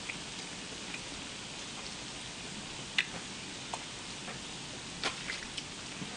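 Pork and duck meat sizzling on a hot tabletop griddle: a steady hiss with a few sharp pops of spitting fat.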